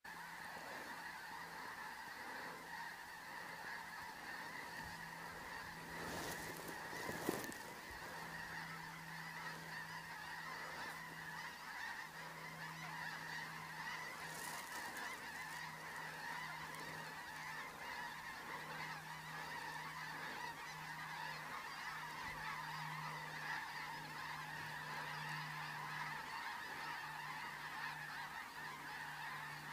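A large flock of geese calling overhead, a continuous many-voiced din of honks. A brief knock about seven seconds in.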